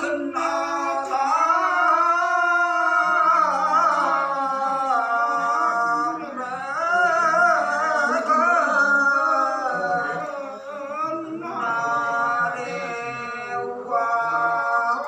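Unaccompanied hà lều folk singing by a man, long held notes that waver and slide in pitch, with a brief breath-break about ten seconds in.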